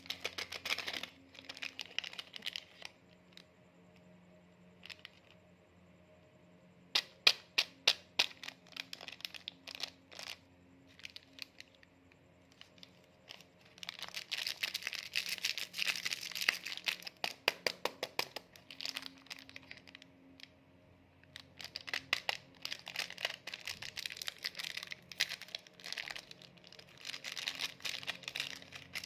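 Plastic snack packets crinkling and tearing as they are handled, in several bursts with quiet gaps between. About a quarter of the way in, a run of sharp separate crackles stands out.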